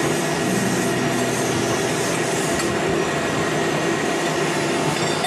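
Steady hum and hiss of running workshop machinery, at an even level throughout, with a single faint metallic tick a little past halfway.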